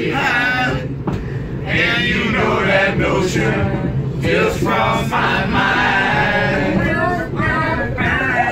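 Men's voices singing together unaccompanied, over the steady low rumble of a moving train carriage.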